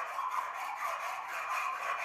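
Abrasive tool rubbing on the sheet steel of the bonnet in rust repair, a steady scraping that pulses several times a second.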